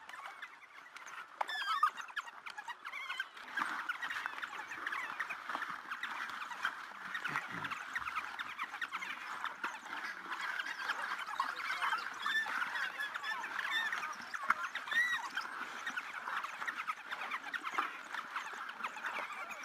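A pack of African wild dogs twittering and squeaking: a dense, continuous chatter of many short high calls overlapping one another.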